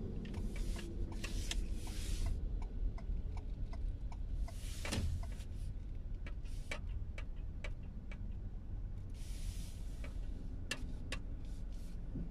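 Inside a car moving slowly: a low steady rumble from the engine and road, with many scattered light ticks and clicks and three brief hissing swells.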